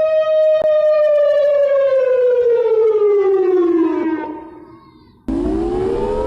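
Civil defense siren holding a steady pitch, then winding down and fading out about four to five seconds in. Another siren then cuts in, winding up in pitch over a low rumble.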